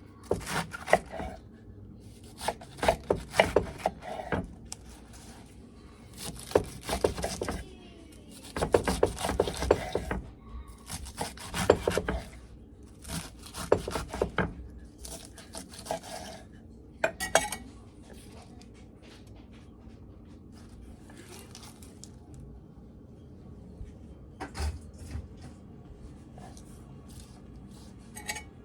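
Kitchen dishes and utensils being handled while a salad is prepared: irregular bursts of quick clicks, knocks and scrapes, thinning to a few knocks in the second half.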